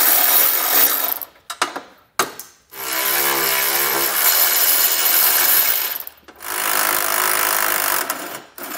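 Cordless electric ratchet spinning 18 mm nuts off bumper beam studs. It runs in three spells: it stops about a second in, then runs about three seconds, pauses briefly, and runs about two seconds more. A few clicks come in the first pause.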